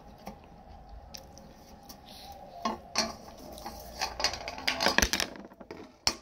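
Chopsticks clicking and scraping on a metal plate, with knocks as the plate is handled, starting about two and a half seconds in and busiest near the end.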